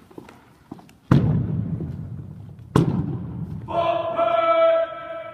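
A drill team making two loud thuds in unison, about a second and a half apart, echoing in a large hall. Then a long held chanted call starts near the end.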